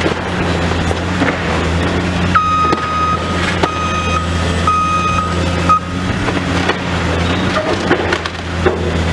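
Heavy diesel demolition machinery running steadily while a reversing alarm beeps four times, about a second apart, the last beep cut short. Demolition debris cracks and crunches throughout.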